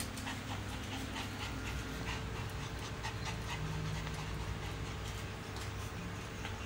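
Dog panting rapidly, with frequent small sharp clicks throughout, the sound of puppies eating dry kibble from bowls.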